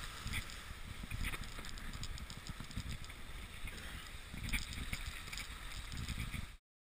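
Wind buffeting the microphone and water rushing and splashing along the hull of a Mini 6.50 racing sailboat under way at speed, with a few small knocks. It cuts off abruptly near the end.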